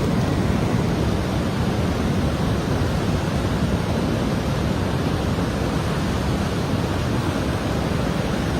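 Steady, loud rush of floodwater and heavy rain in a flooded street, with no distinct events, cutting off suddenly at the end.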